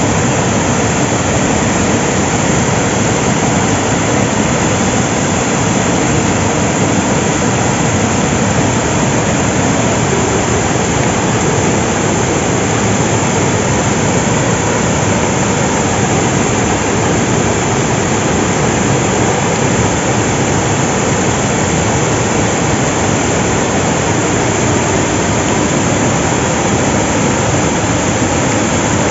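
River water pouring over an old dam in a loud, steady rush.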